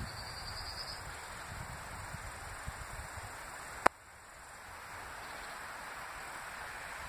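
Steady outdoor wind and rustle noise with no train yet, broken by one sharp click about four seconds in, after which the noise drops briefly and builds back.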